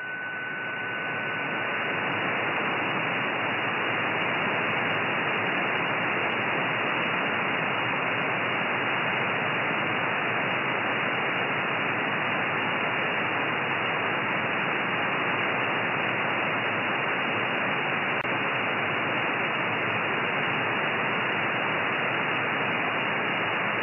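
Static hiss from a software-defined radio receiver on 13 cm (2320 MHz) upper sideband with no station on frequency: even, band-limited noise that swells over the first two seconds and then holds steady. A faint steady tone fades out in those first two seconds.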